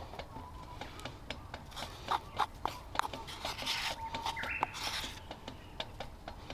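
Camp-cooking handling sounds: irregular small clicks and taps throughout, with two brief rustles a little past the middle.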